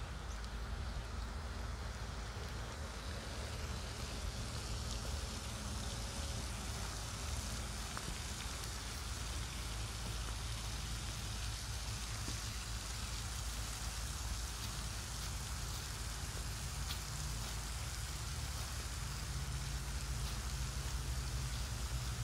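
Steady hiss of water from a floating pond fountain aerator spraying up and falling back onto the pond surface, over a low steady rumble.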